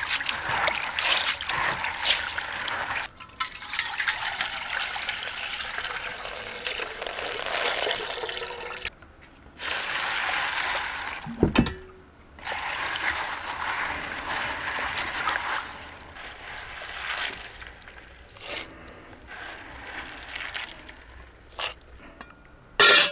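Hands swishing and rubbing beans in a plastic basin of water to wash them, water splashing and trickling. There is one sharp knock about halfway through, and the washing sounds thin out over the last several seconds.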